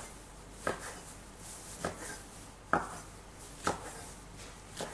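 Chef's knife chopping lettuce leaves on a wooden cutting board: five slow chops, about one a second, each a sharp knock of the blade on the board.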